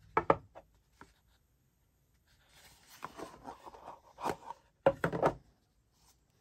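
A rigid cardboard gift box and sunglasses case being handled: a couple of sharp knocks at the start and another about a second in, a scraping rustle of card sliding about three seconds in, and a louder cluster of knocks around five seconds in.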